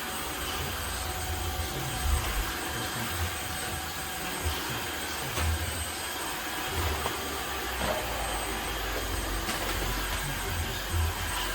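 Tineco Floor ONE S5 cordless wet-dry vacuum mop running steadily, a constant motor whine and airflow hiss, with irregular low bumps.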